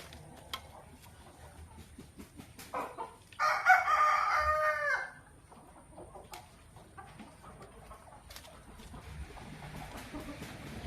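A rooster crows once, a loud call of under two seconds starting about three and a half seconds in and ending on a falling note.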